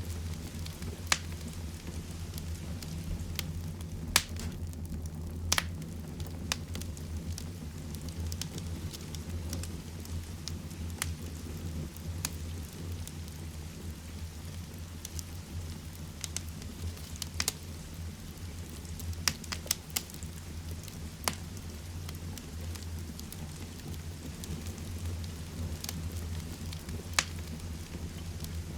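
Heavy rain falling steadily, with a wood fire in a fireplace crackling over it: sharp pops at irregular intervals, every second or two.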